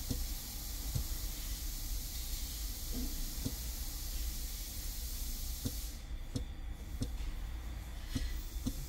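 Steady hiss over a low rumble, with a few faint clicks; the high hiss thins out about two-thirds of the way through.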